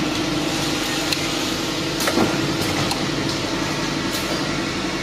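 Automatic bottle filling and capping line running: a steady mechanical hum with scattered sharp clicks and knocks.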